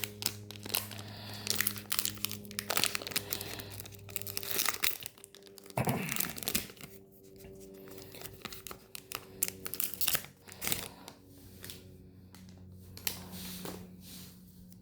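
Foil Pokémon booster pack wrapper being torn open and crinkled by hand, in a run of irregular crackles.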